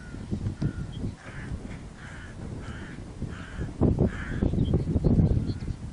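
A bird calling again and again in a run of short calls, over a low rumble that grows louder in the second half.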